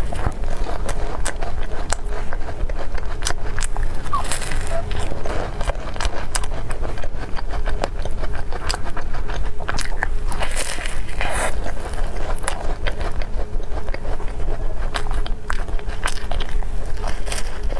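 Close-miked biting and chewing of a mille-feuille: its flaky puff-pastry layers crunch and crackle in many small snaps. A steady low hum runs underneath.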